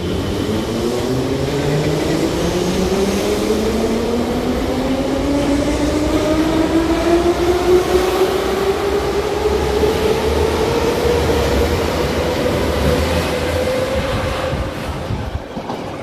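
Moscow Metro 81-717/714 train pulling out of the station: its traction motors give a rising whine, several tones climbing together as it gathers speed over a low rumble of wheels on rail. The sound fades away near the end as the last car leaves.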